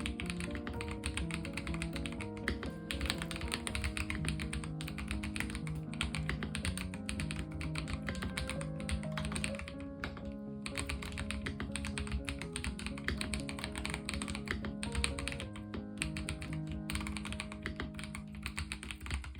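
Fast typing on a Yunzii X75 mechanical keyboard fitted with Bsun Raw Tactile switches: a dense, steady run of keystroke clicks with a brief pause about halfway through, heard over background music.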